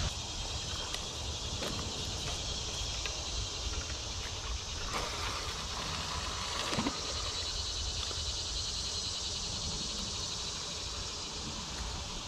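Steady outdoor ambience of insects trilling, over a low rumble.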